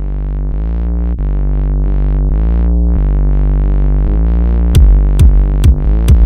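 Electronic music: a sustained synthesizer chord that swells in repeated waves and grows louder, with a drum-machine beat coming in near the end at about two beats a second.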